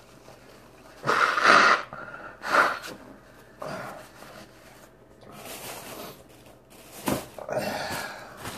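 A person blowing their nose into a paper tissue, several blows: a long, loud one about a second in, a shorter one soon after, and weaker ones later. A short sharp knock comes about seven seconds in.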